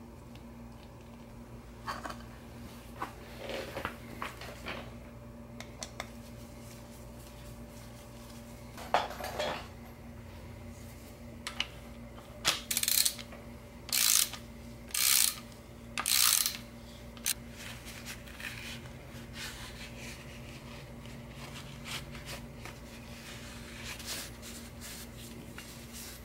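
Metal tools and parts clinking and tapping against a bare engine block, then a socket ratchet cranked in four short bursts of rapid clicking about halfway through as a bolt is run in.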